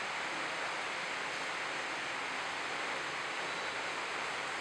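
Steady hiss of rainfall, an even wash without breaks, with a faint high steady tone running through it.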